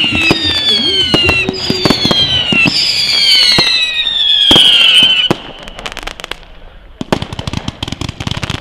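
Fireworks display: a rapid series of whistles, each falling in pitch, mixed with sharp bangs for about five seconds. It then drops quieter, and a dense stream of crackling pops starts about seven seconds in.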